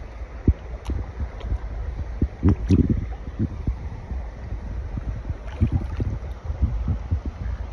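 Wind buffeting the microphone in a canoe, with scattered knocks and thumps against the hull, a cluster of them about two and a half seconds in.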